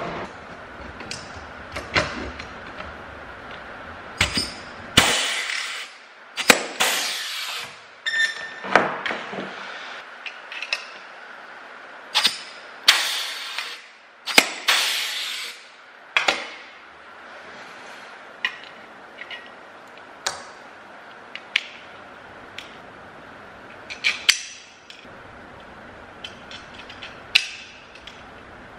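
Powered rivet gun setting blind rivets through a steel bracket: about half a dozen short pulls, each ending in a sharp snap, with lighter clicks and clinks of metal parts being handled in between.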